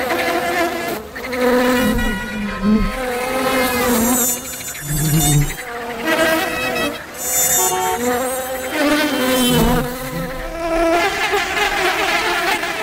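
Flying insects buzzing: several wingbeat hums overlap and come and go, each rising and falling in pitch as it passes.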